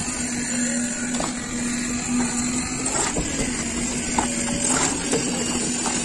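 Concrete mixer engine running steadily with a low hum, while wet concrete is spread on a roof slab. A few short scrapes and knocks from trowels and metal pans come through it.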